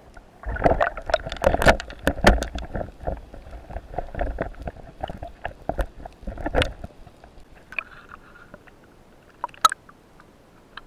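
Underwater sound at a speargun-mounted camera: bubbling, water rushing and irregular knocks and thumps as the diver handles the speared dentex. It eases off after about seven seconds, and there is a brief sharp sound near the end as the camera reaches the surface.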